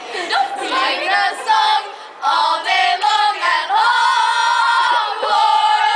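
High young voices singing together in a rhythmic chant, with a long held note about four seconds in.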